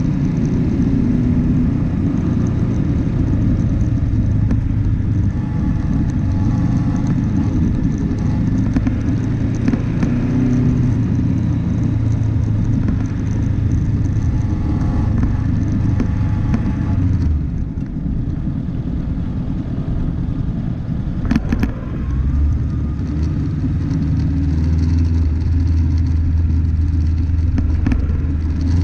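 Off-road vehicle driving, its engine a steady low drone under road rumble. About two-thirds of the way in the engine note drops and there is a sharp knock, then the engine settles into a lower, steady drone.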